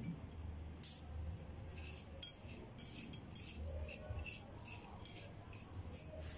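A hand stirring a plateful of small crabs (crablets) on a ceramic plate: scattered light clicks and rattles of the crab shells against each other and the plate, over a faint low hum.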